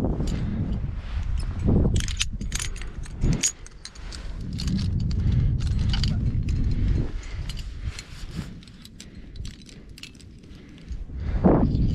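Climbing hardware jangling and clinking: carabiners and cams on a harness gear rack knocking against each other as the climber moves. There is a low rumbling noise on the microphone through the first half.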